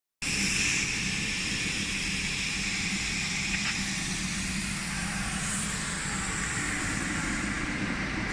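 A machine running steadily: an even hum under a constant hiss.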